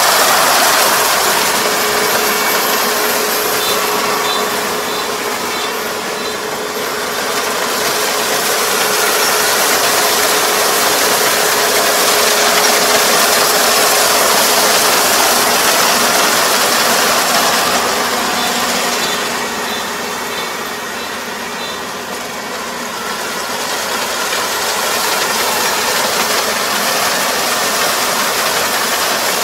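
Four-row rice combine harvester running under load as it cuts lodged rice: a steady engine and threshing-machinery drone with a constant hum, easing a little about two-thirds of the way through.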